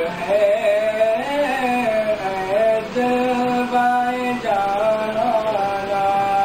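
A man singing a naat, an Urdu devotional poem, unaccompanied into a microphone, in a melodic line of long held and bending notes.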